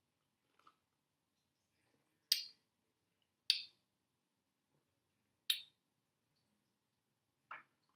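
Four short, wet mouth noises, a second or two apart, from someone sipping and tasting a beer.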